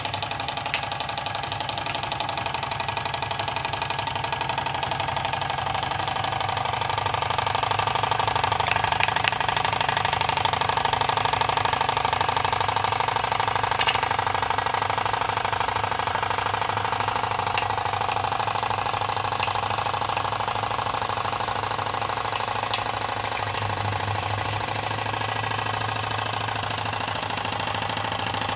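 Gas-fired Jensen model 35 toy steam engine running steadily on live steam with a fast, even mechanical beat, belt-driving a model windmill. The running gets a little louder for a few seconds partway through.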